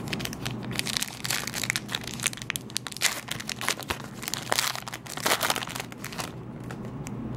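Foil wrapper of a basketball trading card pack crinkling as it is torn open by hand and the cards are slid out: a dense run of irregular crackles that thins out about six seconds in.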